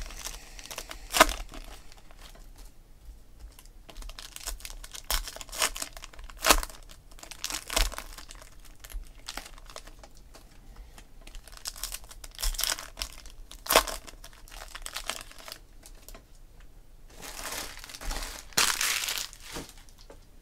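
Foil trading-card pack wrappers being torn open and crinkled by hand, in irregular sharp crackles and rips, with a longer stretch of crinkling near the end.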